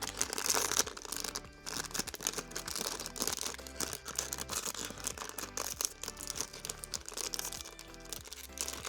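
Toy packaging being opened by hand: plastic and paper crinkling and tearing in quick irregular bursts, over steady background music.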